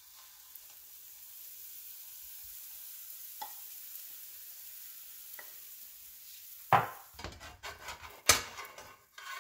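Buckwheat pancake batter sizzling in a hot non-stick frying pan as it is poured, with a couple of faint taps. About two-thirds of the way through, a spatula starts knocking and scraping against the pan, with two sharp clacks as the loudest sounds.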